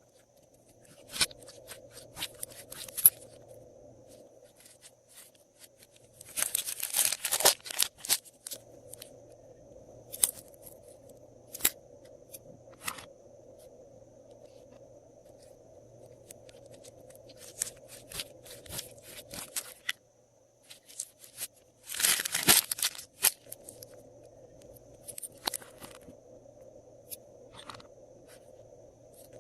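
Hands pressing and stretching glossy slime: scattered sticky clicks and crackling pops, with two longer bursts of dense crackling, one about a quarter of the way in and one about three-quarters through. A steady low hum runs underneath.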